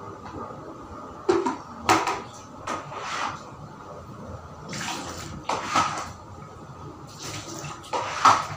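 Wet string mop swishing and slapping across a tiled floor, in about ten irregular strokes, the loudest near the end.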